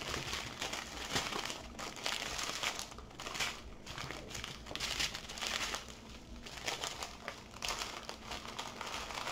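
Clear plastic packaging crinkling and rustling under hands as a plastic-wrapped diamond painting canvas and small plastic bags of drills are handled, with uneven crackles throughout.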